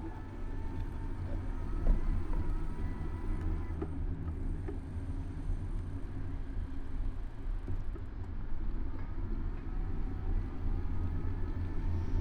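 Steady low rumble of city traffic and road noise, picked up by a camera mounted on a moving bicycle.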